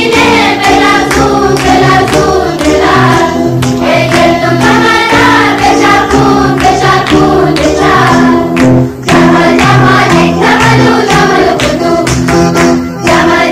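A song: singing over held instrumental notes, a bass line and a steady beat.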